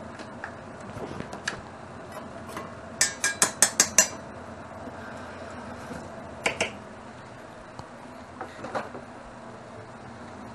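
A metal spoon clinking against stainless steel: a quick run of about six sharp taps a few seconds in, then a few scattered clinks, over a steady low hum.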